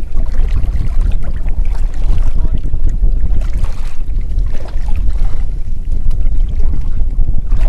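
Wind buffeting a camera microphone: a loud, rough, uneven rumble.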